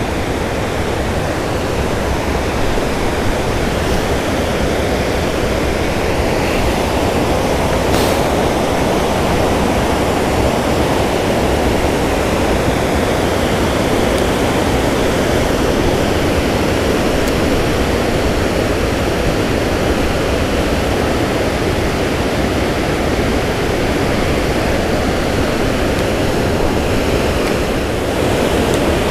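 Water rushing steadily over a spillway into the river below, an even, unbroken wash of falling water.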